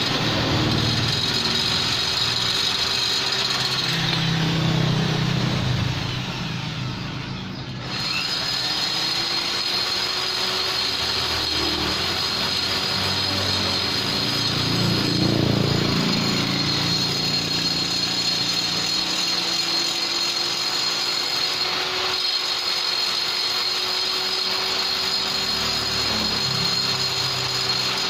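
High-speed rotary grinder with a carbide tuner burr running with a steady high whine, grinding metal to shape the port holes of a Vespa engine. It bites harder twice, and eases off briefly about six seconds in.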